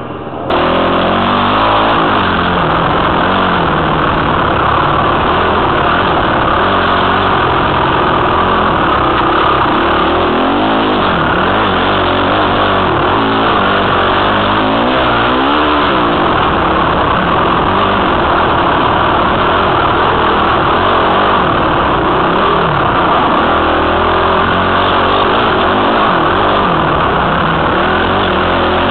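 Dirt bike engine revving up and down as the bike is ridden along a trail, heard close through a helmet camera's microphone. It gets loud about half a second in and stays loud, with the engine pitch rising and falling continually.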